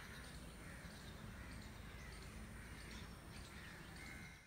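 Faint outdoor ambience: birds calling, several short calls scattered throughout, over a low steady rumble.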